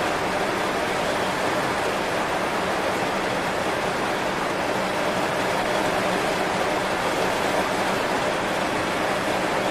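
Heavy rain falling on banana leaves: a steady, even hiss of drops with no letup.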